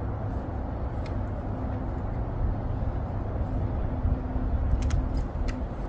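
Steady low outdoor rumble, with a few faint sharp clicks: one about a second in and two near the end.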